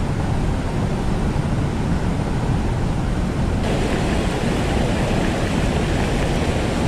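Mountain stream rushing over boulders: a steady rush of water, which turns brighter and louder about halfway through.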